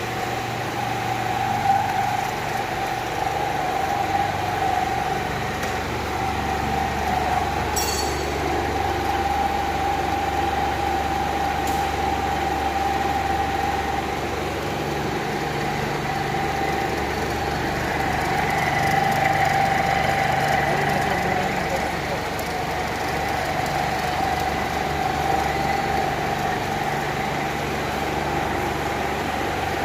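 Block-ice machine's refrigeration unit running steadily: a constant mid-pitched whine over a low hum.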